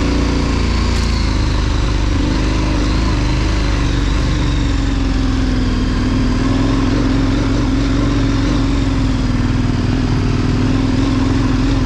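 KTM 1090 Adventure's V-twin engine running steadily under the rider, its pitch wavering slightly up and down as the throttle is worked over rough trail.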